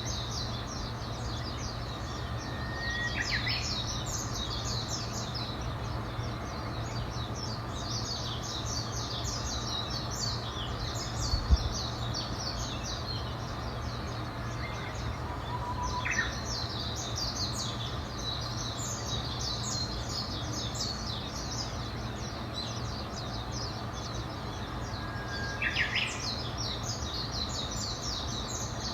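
Many small songbirds chirping continuously in quick, high notes. A louder call, a short note that leaps up into a brief sweep, comes three times, roughly every eleven or twelve seconds. Under it runs a steady low hum, and there is one short low thump about eleven seconds in.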